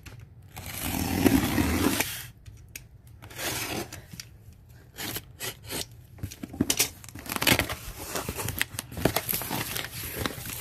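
Cardboard box being opened: a loud rasp of packing tape being torn or cut early on, then scattered clicks and rustling as the flaps and packing are pulled about.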